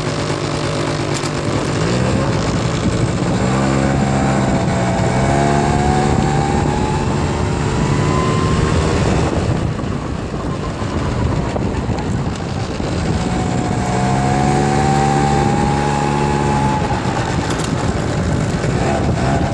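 1993 Yamaha Razz moped's small two-stroke engine under way, its pitch climbing as it accelerates over the first several seconds. It drops away about halfway through, climbs again, and falls off near the end.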